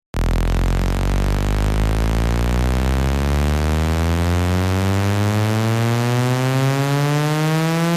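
Electronic test-tone frequency sweep for a subwoofer sound check: a buzzy tone with many overtones that starts abruptly and climbs slowly and steadily in pitch from a deep bass note.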